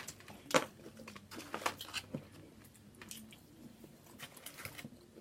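Someone chewing and smacking while eating seafood: a series of short sharp clicks and crunches, the loudest about half a second in.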